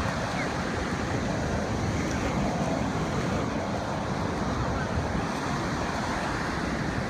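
Ocean surf breaking and washing up over wet sand: a steady rush of waves, with wind rumbling on the microphone.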